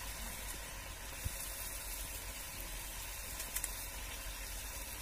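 Chicken skin and gourd curry sizzling as it simmers in a metal kadai, a steady hiss with a couple of small pops.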